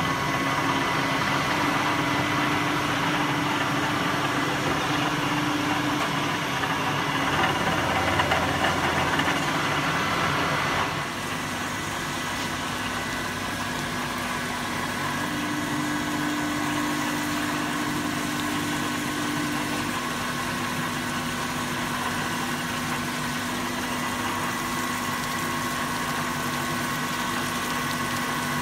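SORALUCE Soramill SL 4000 3-axis CNC milling machine running a cut: a steady whine from the spindle and drives over a noisy cutting hiss. About eleven seconds in the sound drops a little and changes, with the tool then cutting under a flood of coolant.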